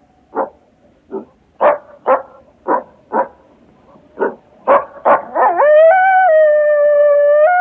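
Coyote giving a string of about ten short barks and yips. About five seconds in, it breaks into a long howl that rises in pitch and then holds steady.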